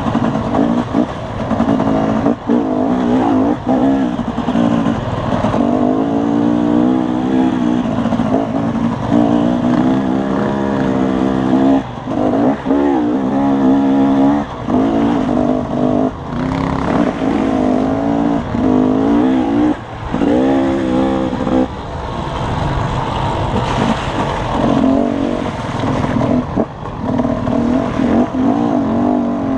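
Dirt bike engine under the rider, revving up and down with the throttle over rough trail: its pitch climbs and falls over and over, with short dips where the throttle is briefly closed.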